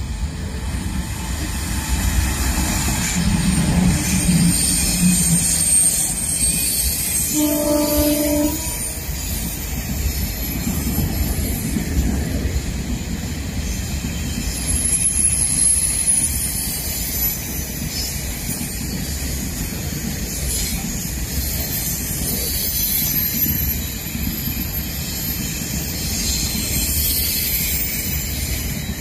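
A freight train of covered boxcars behind an HXD1 electric locomotive rolls past, with a steady rumble and clatter of wagon wheels on the rails. A single horn blast of about a second sounds some seven seconds in.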